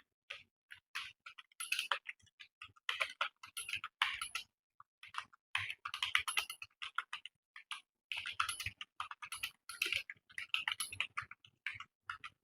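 Fast touch-typing on a computer keyboard: rapid runs of key clicks, broken by short pauses.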